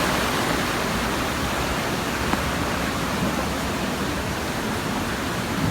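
Small creek waterfall with water rushing over rocks, a steady even hiss.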